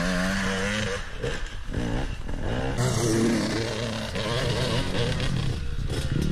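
Two-stroke Husqvarna enduro dirt bike engine revving up and down under load as it climbs a steep dirt bank.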